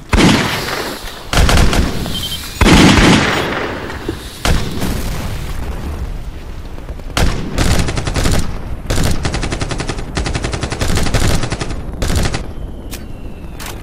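Battle sound effects of gunfire and explosions: three loud blasts, each dying away slowly, in the first three seconds. From about seven seconds on, rapid bursts of automatic gunfire follow.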